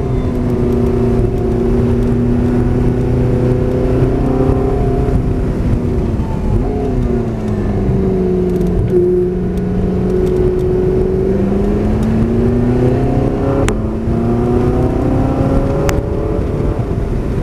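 Porsche 918 Spyder's V8 engine running under load on track, heard from the open cockpit over wind and road noise. Its pitch falls steadily as the car slows into a corner, holds low for a few seconds, then rises again as it accelerates out. Two short sharp clicks sound near the end.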